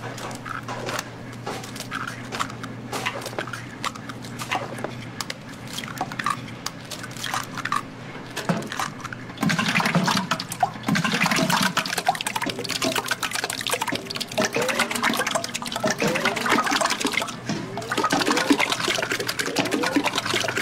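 Raw eggs being cracked against a steel bowl, a run of short sharp clicks and taps. About halfway in, a bowlful of cracked eggs is poured into a large aluminium pot, a louder, steady pouring and splashing of liquid.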